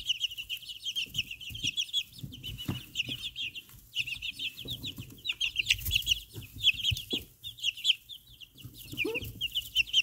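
A brood of ten-day-old chicks peeping nonstop: many short, high, falling cheeps overlapping one another, with a few soft knocks and rustles close by.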